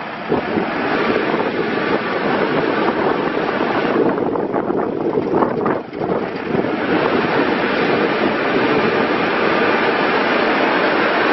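Komatsu WB156PS-5 backhoe loader's diesel engine running, with wind buffeting the microphone; the sound briefly drops about six seconds in.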